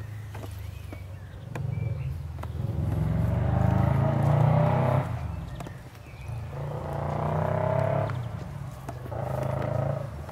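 O.S. FF-320 Pegasus 53 cc four-cylinder four-stroke boxer glow engine running on a test stand, turning a propeller. It is revved up three times, each burst rising in pitch and getting louder, then dropping back to a steady idle; the longest burst comes first.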